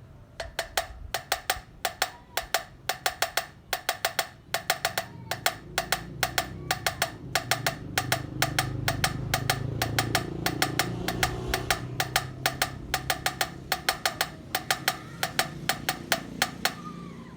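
Rapid hammer blows on metal, each strike ringing with the same clear tone, coming in quick runs of three to six with short pauses between. A low hum runs underneath and grows louder mid-way.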